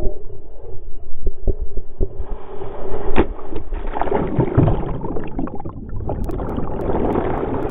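Water rushing and splashing as a foiling International Moth dinghy crashes, with sharp knocks from the hull and rig, the strongest about three seconds in. It goes on into muffled churning and bubbling as the sailor goes under the water.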